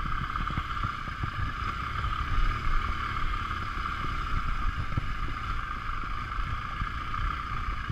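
BMW R 1200 GS motorcycle ridden down a rough gravel track: a low rumble with irregular knocks from the bumpy ground, over a steady high hiss.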